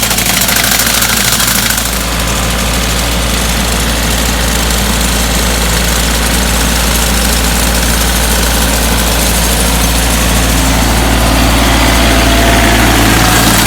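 Tractor engine running steadily at a constant speed, its pitch and level nearly unchanged, with a slight drop in loudness about two seconds in.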